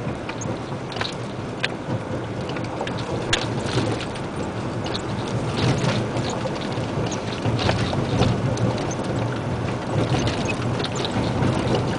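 Isuzu Giga dump truck's diesel engine running with a steady low hum, heard from inside the cab, under a constant rough noise of tyres on gravel and a scatter of small clicks and rattles as the truck drives a dirt road.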